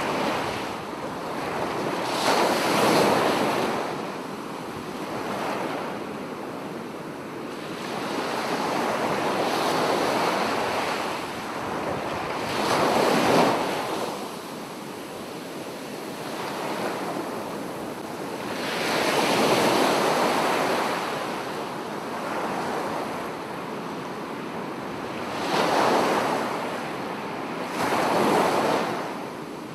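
Sea waves breaking on a sandy beach: a continuous rush of surf that swells into a louder crash every few seconds as each wave breaks.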